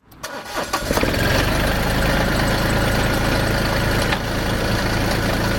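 Compact diesel tractor engine, a Massey Ferguson GC2310's, idling steadily. It comes up within the first second, and there is a short click about four seconds in.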